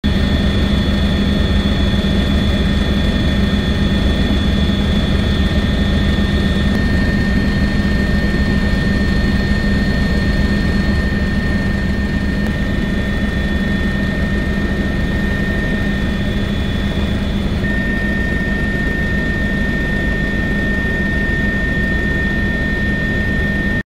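Steady engine and cabin noise inside a helicopter in flight: a continuous low rumble with a low hum and a few steady high-pitched whining tones.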